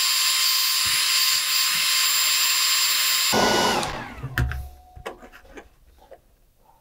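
Handheld hair dryer running, a steady rush of air with a high whine, switched off a little over three seconds in and spinning down. A few soft knocks and clicks follow.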